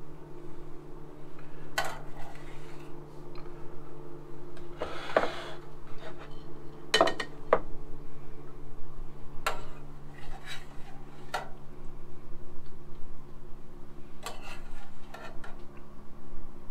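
Spoons clinking and scraping against bowls and a pan as ice cream and bananas Foster are dished up: scattered sharp clinks and one longer scrape about five seconds in. A steady low hum runs underneath.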